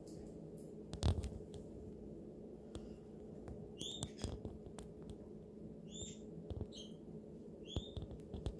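A sharp knock about a second in, then short high chirps, each with a bend in pitch, repeating roughly every two seconds over a steady low hum.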